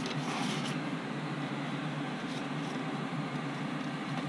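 Wet sanding of a primed carbon-fibre frame plate on wet/dry sandpaper: a few faint scrubbing strokes in the first second and again around two and a half seconds, over a steady low hum.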